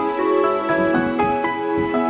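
Instrumental background music: a slow melody of held notes that change every few tenths of a second.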